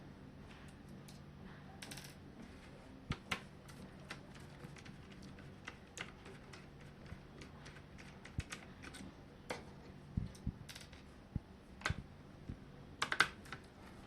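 Irregular small clicks and taps of hands working on a plastic laptop case, taking out its underside screws with a screwdriver and setting them and parts down, with a quick cluster of clicks near the end. A faint steady low hum runs underneath.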